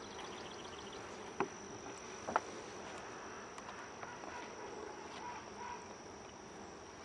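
Honeybees buzzing steadily around an open hive, a faint even hum with a thin steady high tone running under it. Two short clicks stand out, about a second apart, near the start.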